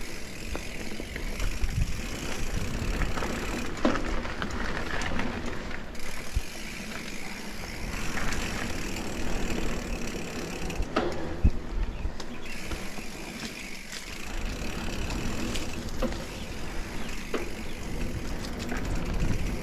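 Mountain bike riding over a dirt trail: tyres running on the ground and the bike rattling and knocking over bumps, with wind rumbling on the microphone.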